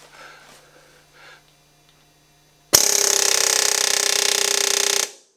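Pneumatic air hammer firing in a loud, rapid, steady burst of about two seconds, starting a little past halfway and stopping abruptly, as it pounds the crown of a seized piston to drive it out of the bore of a locked 1952 Oldsmobile engine.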